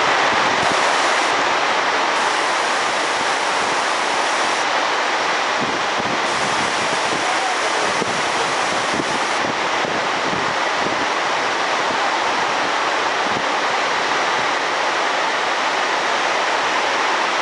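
Torrential rain pouring down in a loud, steady rush.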